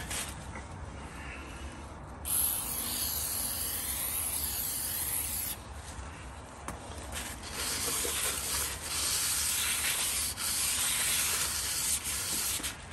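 Aerosol brake cleaner sprayed onto a new brake rotor in a steady hiss lasting about three seconds. A cloth towel then rubs and wipes the rotor face to clear off its anti-corrosion oil.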